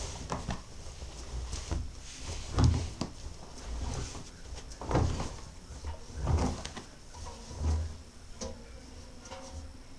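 Miele Novotronic W923 washing machine drum turning slowly, the laundry dropping inside it with dull thumps about once a second.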